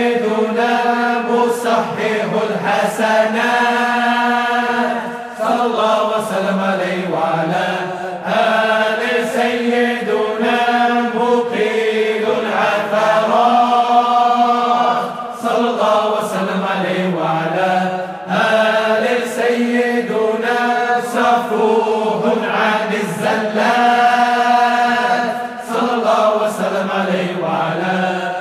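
Voices chanting Arabic salawat, blessings on the Prophet, in a slow melodic zikr, with long held notes in phrases of a few seconds over a steady low drone.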